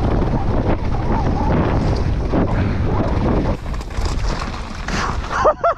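Downhill mountain bike riding fast over a rocky gravel trail: tyres rumbling and crunching on loose stones and the bike rattling, with wind buffeting the microphone. A short shout comes near the end.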